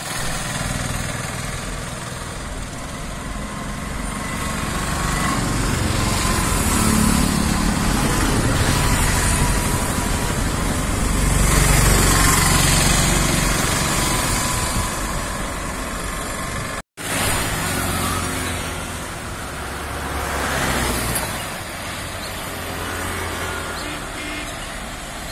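Road traffic: motorbikes, cars and lorries passing on a two-lane road, the noise swelling and fading several times. The sound cuts out briefly about seventeen seconds in.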